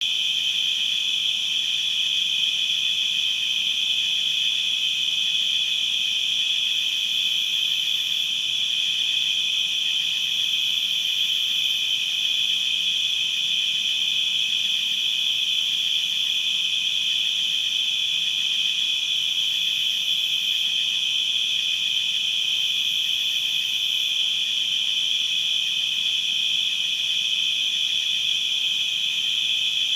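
A chorus of crickets chirping, a constant high-pitched trill that holds steady without breaks.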